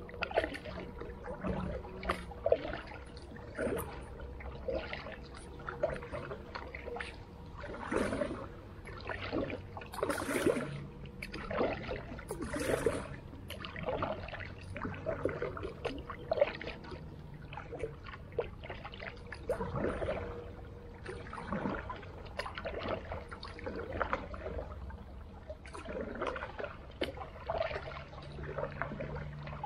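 Creek water splashing and gurgling in irregular sloshes, several a second, some louder than others.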